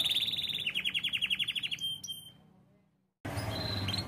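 Domestic canary singing: a fast high trill that breaks into a quick run of evenly repeated notes, about fifteen a second, and fades out about two seconds in. After a brief dropout to silence, a few faint chirps follow near the end.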